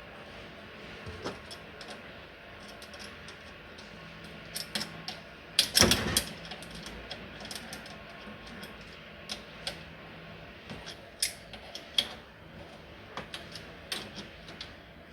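Irregular light clicks and taps of tools and small metal parts as a washing machine is screwed back together, with a louder clatter about six seconds in.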